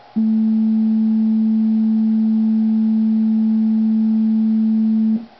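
A 220 Hz sine-wave test tone, one step of a frequency test track, held steady for about five seconds. It starts and stops abruptly and has a faint overtone an octave higher.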